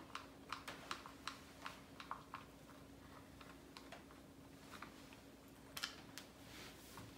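Faint, regular clicking, about three clicks a second for the first two seconds, then a louder double click near the end: small screws being worked loose from the plastic chassis of a Traxxas 4-Tec 2.0 RC car with a hand driver, as its front end is taken apart.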